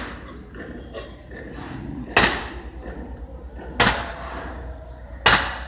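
Three loud, sharp bangs about a second and a half apart, each with a short fading tail.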